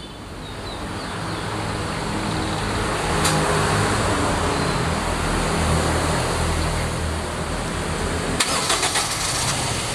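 Toyota Innova's petrol engine starting and running, growing louder over the first few seconds and then holding steady, with a few sharp clicks about three seconds in and again near the end. It is the first start after a carbon clean done through the spark-plug holes.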